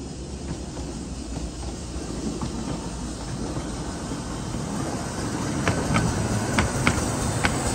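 A miniature 15-inch gauge steam train running on the track, its low rumble growing steadily louder. In the last couple of seconds, sharp clicks join in, about three a second.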